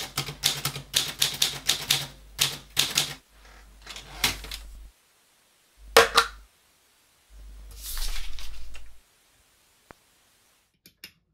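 Typewriter keys striking in a quick run for about three seconds, then a few more keystrokes. A single hard knock about six seconds in as a self-inking stamp is pressed onto paper, followed by a longer rasping sound and a few faint ticks near the end.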